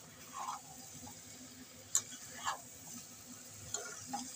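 A spatula stirring and turning chicken pieces coated in thick masala in a nonstick kadai: a few short scrapes and one sharp tap of the spatula against the pan, over a faint steady hum.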